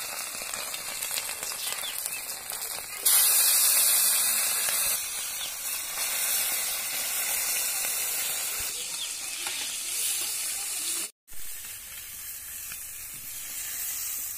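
Hot oil sizzling as small fish fry in a metal wok. The sizzle grows louder for about two seconds, starting about three seconds in, and cuts out for an instant near the end.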